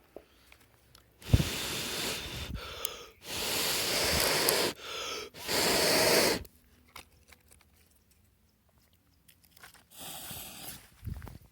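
A firework going off: a sharp pop, then loud sputtering hiss in several bursts of a second or so each, with one shorter, quieter hiss near the end.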